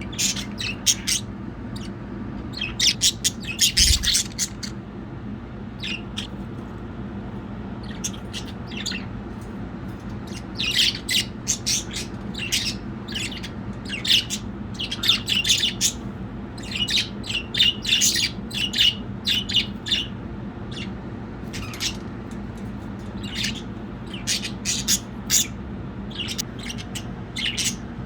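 Pet budgerigars chirping and chattering in quick bursts of short, high chirps and squawks, with brief pauses between the bursts, over a steady low hum.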